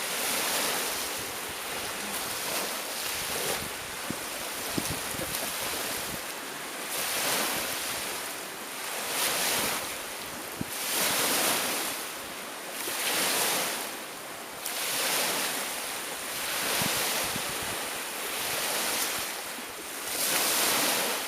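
Steady wind and surf noise with no speech, swelling and fading every two seconds or so.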